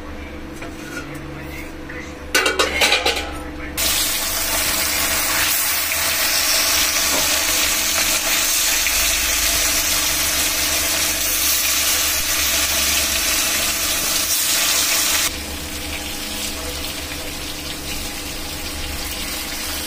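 Marinated fish pieces frying in hot mustard oil in a kadhai. About two seconds in there is a short burst of loud crackling and spattering, then a loud steady sizzle; about three-quarters of the way through it drops suddenly to a quieter, steady frying sizzle.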